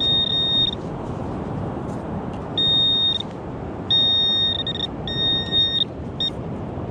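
Handheld metal-detecting pinpointer probe giving a high buzzing beep in short bursts, five times, as it is pushed through loose sand: the tone signals metal close to its tip, here a buried coin. A steady low rushing noise runs underneath.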